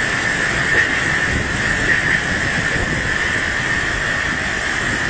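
Typhoon-force wind and driving rain, a loud steady rush of noise with a constant high whistle running through it.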